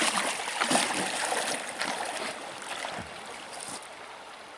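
River water splashing and sloshing around a person wading in waders, in uneven bursts that die down after about three seconds, leaving the steady run of the stream.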